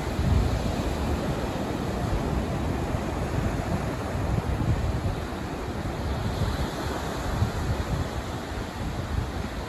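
Ocean surf breaking and washing up a sandy beach, a steady wash of waves. Gusty wind buffets the microphone with an uneven low rumble.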